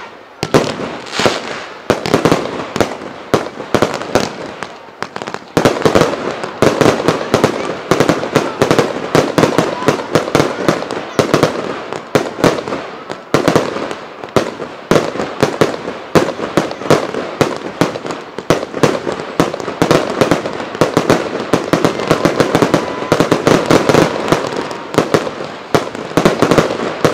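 Fireworks finale: aerial fireworks bursting in rapid, near-continuous bangs with crackle between them, thickening into a denser barrage about six seconds in.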